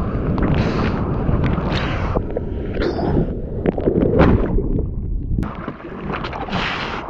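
Breaking-wave white water rushing and splashing over an action camera mounted on a surfboard, with wind buffeting the microphone. The sound turns muffled for stretches, about two seconds in and again near the end, as the camera goes under the churning water.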